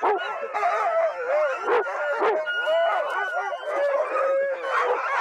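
Many sled dogs yelping and whining at once, a crowd of overlapping high calls that rise and fall without a break.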